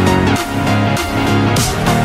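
Electronic background music with a steady beat and sustained bass notes.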